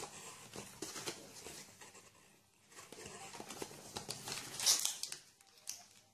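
Hands rustling and handling a phone box's cardboard insert and packed accessories as they are lifted out, irregular scraping and crinkling with small knocks; the loudest crinkle comes about three-quarters of the way through.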